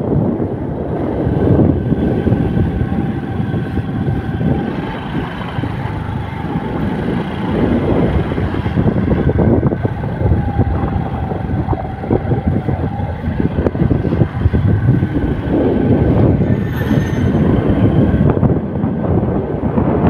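A vehicle moving along a road: steady engine and road rumble, with wind buffeting the microphone.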